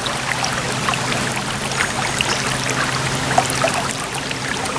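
River water running steadily, a continuous rushing.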